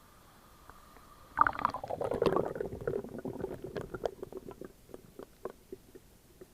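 Water gurgling and bubbling, starting suddenly about a second and a half in and dying away into scattered pops and clicks.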